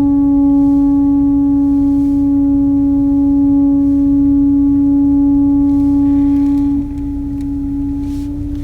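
Volkswagen T-Roc 1.5 TSI giving out a loud, steady droning tone of one pitch while reversing, over a low rumble: an unwanted fault noise on a car with under 5,000 km. The tone gets quieter about seven seconds in but keeps going.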